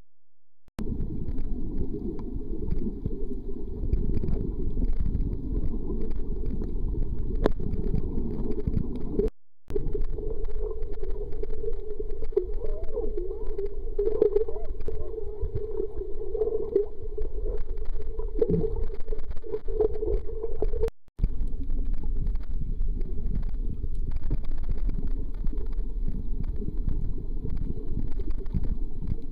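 Muffled, steady underwater rumble of water against a camera in a waterproof housing, with faint wavering tones in the middle stretch. The sound drops out briefly twice.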